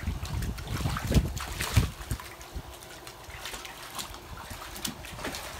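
Puppies wading in a shallow plastic kiddie pool, water splashing and sloshing in irregular bursts, heavier in the first two seconds and lighter after.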